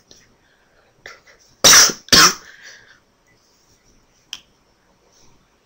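A person coughing twice in quick succession close to the microphone, about half a second apart. A single faint click follows a couple of seconds later.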